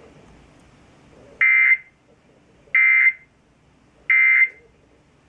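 Emergency Alert System end-of-message data tones: three identical short, buzzy digital bursts about a second apart, the signal that closes an EAS broadcast message.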